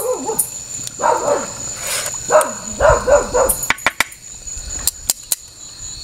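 A dog yelping and barking in three short bursts, followed by a few sharp metal clicks of tongs against an aluminium pot.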